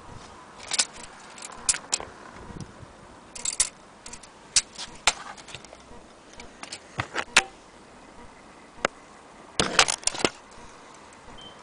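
Irregular metallic clicks and clinks in uneven clusters, with a tight run of them near the end: a small brass carriage clock being handled and moved about.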